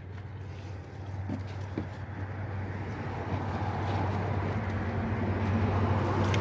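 A motor vehicle's engine running with a steady low hum, growing steadily louder.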